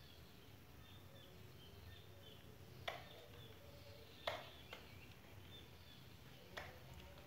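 Scissors snipping through bonsai twigs: three sharp snips a second or two apart, the second followed by a lighter click. Faint bird chirps in the background.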